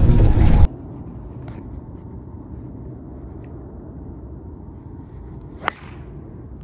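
A golf driver strikes a teed golf ball once, a single sharp click about five and a half seconds in, over low steady outdoor background noise. It opens with a moment of golf-cart ride noise before that drops away.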